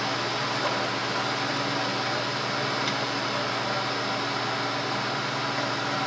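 Steady machine hum with an even hiss, unchanging throughout, with a couple of faint ticks.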